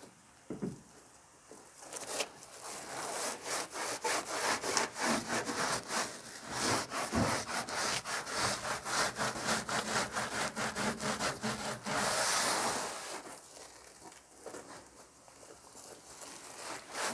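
Quick back-and-forth scrubbing of the truck bed's sprayed-in liner rib with soapy water, several strokes a second. A brief hiss about twelve seconds in, then slower, quieter rubbing.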